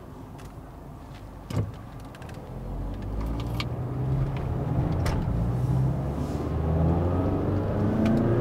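A 2016 Mazda CX-5's engine accelerating, heard from inside the cabin with its throttle response sharpened by a Sprint Booster pedal controller in sport mode. The engine sound builds from about two and a half seconds in, getting louder and climbing steadily in pitch toward the end. A single thump comes about a second and a half in.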